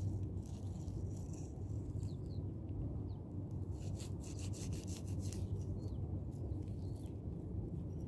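Rustling and scraping in the grass as a knife cuts through a mushroom stem, over a steady low wind rumble on the microphone, with a few faint bird chirps.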